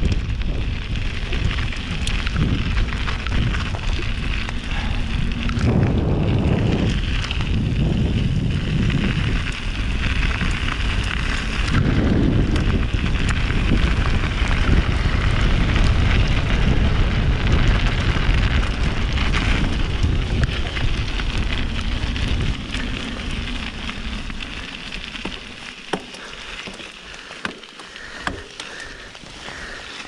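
Wind rushing over the microphone and mountain bike tyres rolling on the trail during a fast downhill ride, with a heavy rumble. It eases about three-quarters of the way through, leaving a few sharp knocks from the bike near the end.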